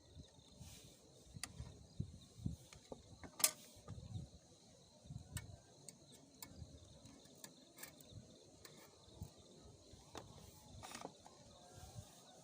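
Scattered sharp clicks, creaks and soft low knocks, the loudest about three and a half seconds in, over a faint steady chirr of crickets.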